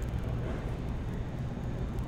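Steady low hum with an even background rumble, typical of a large exhibition hall's ambience.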